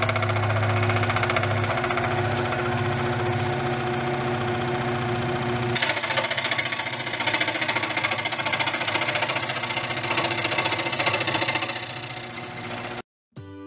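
Performax 16-inch bench scroll saw running, its blade stroking up and down with a steady motor hum and fast buzz. About six seconds in the sound turns rougher as the blade starts cutting into a plywood board.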